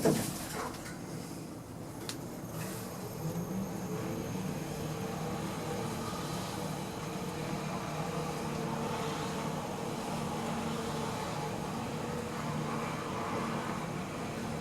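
Glass passenger lift with a 3rd generation KONE EcoDisc gearless machine travelling: a knock at the very start, then a steady motor hum whose low tone rises about three and a half seconds in as the car gets under way.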